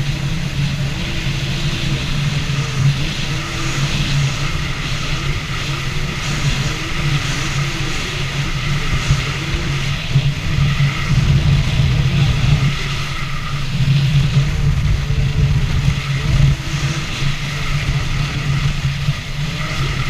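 2017 Yamaha EX Sport jet ski's three-cylinder engine running under way: a steady low drone whose pitch rises and falls over and over as the throttle and load change.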